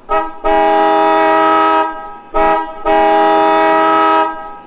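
Car horn honked in a pattern: a short toot, then a long blast of about a second and a half, then another short toot and another long blast.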